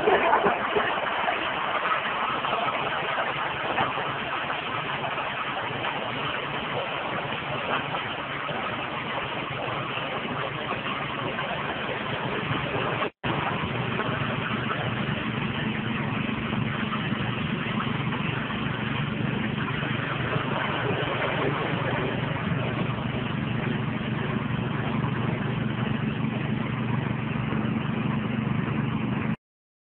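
Engine-driven corn mill with a 6.5 hp engine running steadily while grinding corn cobs into meal: a dense, even machine din over a steady engine hum. It drops out for an instant about 13 seconds in and cuts off abruptly just before the end.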